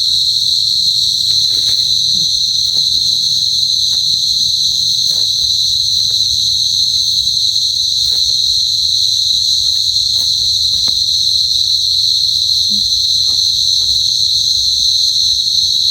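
Loud, steady, high-pitched chorus of night insects, mainly crickets, trilling without a break. Faint scattered rustles and snaps sound now and then beneath it.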